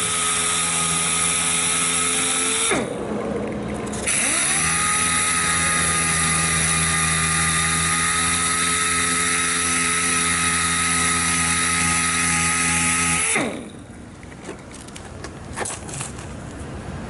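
Air sander spinning at steady speed with a whine and hiss, feather-edging chipped paint on a car body. It winds down about three seconds in, starts up again a second later, and spins down near the end, followed by a few light taps.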